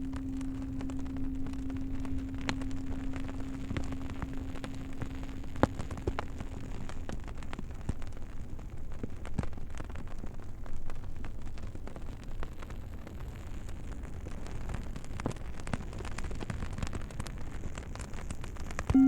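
Campfire crackling and popping, with sharp irregular snaps throughout. The low hum of a singing bowl fades out over the first six seconds or so, and the bowl is struck again right at the end.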